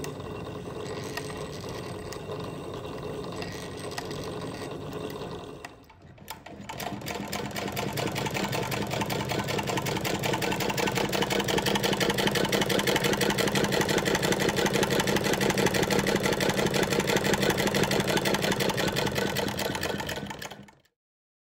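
1887 Davis High Arm Vertical Feed treadle sewing machine running and stitching fabric, its mechanism clattering in a rapid, even rhythm. About six seconds in it dips briefly, then runs on louder, and it cuts off near the end.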